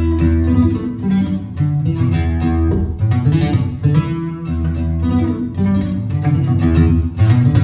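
Acoustic guitar playing a fast instrumental passage of rapidly picked and strummed notes over a low bass line, in a live recording.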